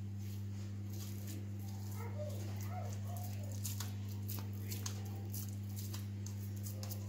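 Soft pats and clicks of hands shaping mashed potato tikki mixture into patties on a plate, over a steady low electrical hum. About three seconds in there is a brief faint whining call.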